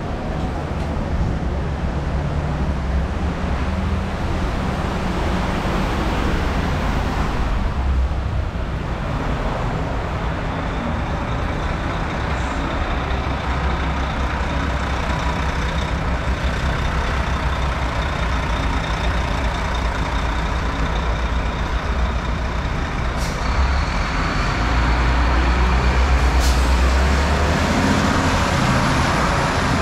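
Heavy street traffic on a wet road: bus and truck engines running close by over a steady hiss of rain and wet tyres. A short sharp hiss about three-quarters of the way through, typical of air brakes. The engine rumble swells near the end.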